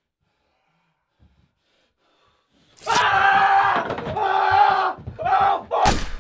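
A person screaming in three or four long, held cries that start about three seconds in after near silence. The screams end with a sudden sharp bang just before the end.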